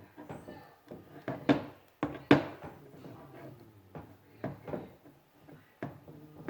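Handling noise: a few sharp knocks and clacks with soft rustling in between, the loudest knock about two seconds in.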